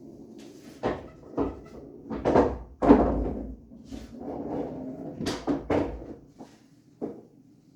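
Pool balls and cue on an 8-foot bar-box table: a run of sharp clacks and knocks, several close together, the loudest about three seconds in.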